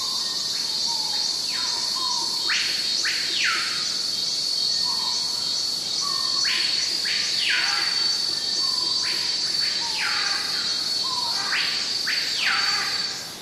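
Nature-ambience soundtrack: a steady, high, pulsing insect trill like crickets, with short chirps and paired brief calls repeating every second or two.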